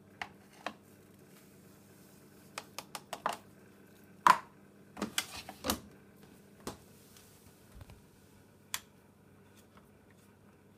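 Irregular sharp clicks and knocks of someone handling a Hoover Dynamic washing machine before a wash, the loudest cluster about four to six seconds in, over a faint steady hum.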